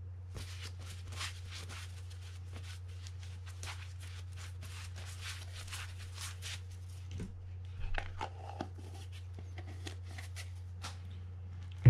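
Paper towel rustling and crinkling in the hand for several seconds, then a few light clicks and taps. A steady low hum runs underneath.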